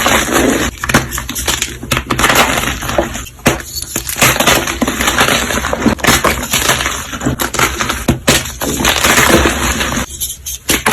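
Crunchy material being crushed close to the microphone: dense crackling and snapping in long runs, with brief pauses about three and a half seconds in, at four seconds, and near the end.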